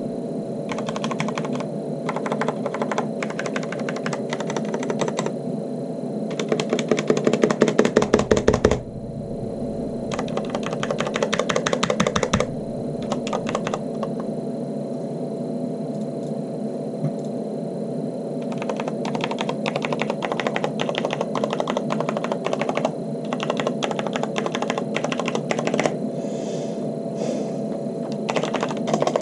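Corsair K70 LUX RGB mechanical keyboard with unlubricated Cherry MX Red linear switches and thick double-shot PBT keycaps, set on a microfiber cloth and typed on in quick runs of keystrokes with short pauses between them. A louder, faster run of keystrokes comes about seven to nine seconds in.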